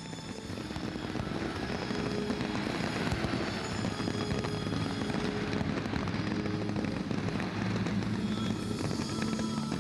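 Fireworks display: a dense, continuous crackle of many bursting shells, swelling in over the first second or two and holding steady.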